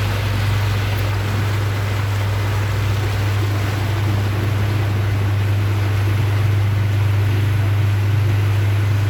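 Houseboat's engine running steadily under way: a constant low drone with an even rush of water and wind noise over it.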